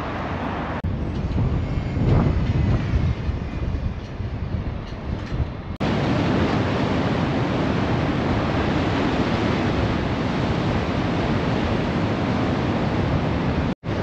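Gusty wind rumbling on the microphone, then, after an abrupt cut about six seconds in, a steady rush of wind and choppy sea surf washing against a seawall at high tide. The sound cuts out briefly just before the end.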